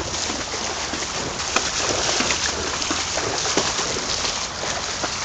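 A pony's legs wading through knee-deep floodwater at a walk, with steady, irregular splashing and sloshing.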